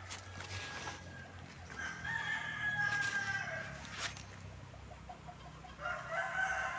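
A rooster crowing: one long crow starting about two seconds in, and another beginning near the end. Two sharp clicks come in between.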